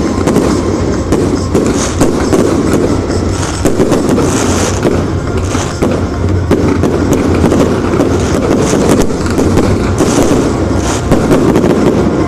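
A continuous barrage of aerial fireworks: dense rapid bangs and crackling shells with no break, swelling into brighter crackle a few times.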